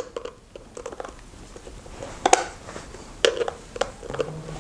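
Scattered light clicks and taps of hands working wires at a ceiling rose's screw terminals, with a few sharper taps about two, three and four seconds in.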